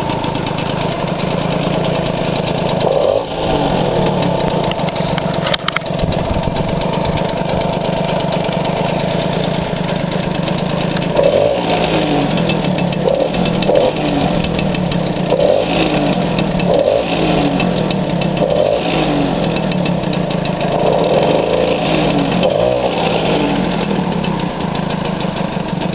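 Moped engine running, with a series of short throttle blips about every second and a half through the second half.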